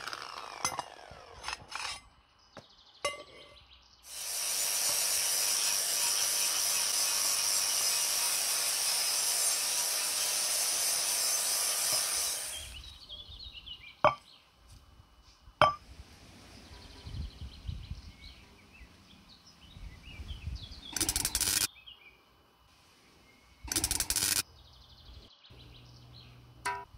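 Angle grinder driving a large sanding disc, running steadily for about eight seconds while a metal stove part is sanded against it. A couple of sharp clinks follow, then two short bursts of sanding near the end.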